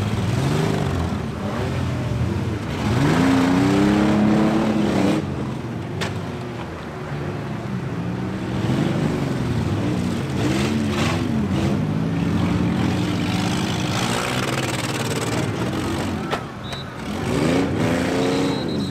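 Several demolition derby minivan engines running and revving over one another, their pitch rising and falling. A sharp crack sounds about six seconds in, and another shorter one near the end.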